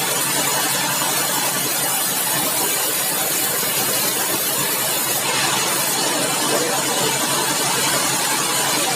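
Steady, loud noise of sawmill machinery running.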